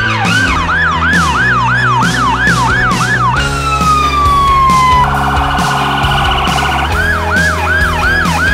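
Electronic emergency-vehicle sirens: a fast yelp sweeping up and down about twice a second, then a falling wind-down about three seconds in, a fast trilling tone, and the yelp again near the end. Background music with a steady beat runs underneath.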